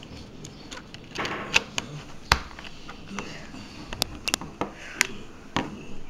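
Plastic clicks and knocks of a Nokia Lumia 510 and its plastic back cover being handled and snapped together on a table, with some rustling. There are about half a dozen sharp clicks, the loudest about two seconds in.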